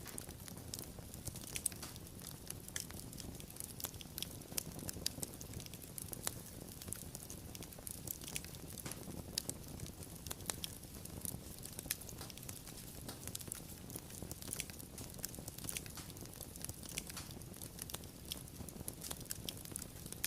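Wood fire crackling, with irregular sharp pops and snaps over a soft low rumble of burning.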